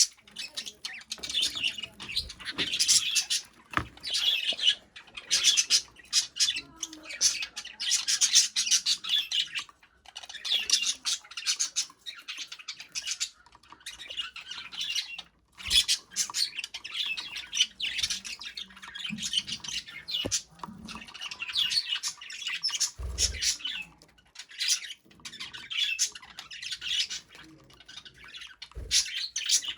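Budgerigar warbling and chattering in rapid, continuous phrases of chirps a few seconds long, broken by short pauses. A brief low thump comes about two-thirds of the way through.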